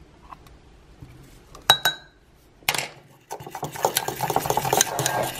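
Metal fork clinking twice against a ceramic mug, then, about three seconds in, stirring fast through a runny mixture with rapid scraping and tapping on the mug's sides.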